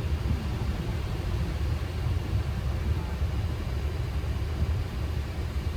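Steady low rumble of Boeing 737 flight deck noise while taxiing in, with a faint even hiss above it.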